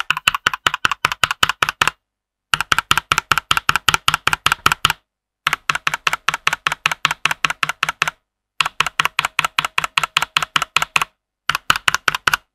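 Rexus Daxa M64 Classic mechanical keyboard with Gateron KS9 Yellow linear switches being typed on fast, about eight to ten keystrokes a second, in runs of two to three seconds with short silent gaps between them. The stock switches still let some spring ping through.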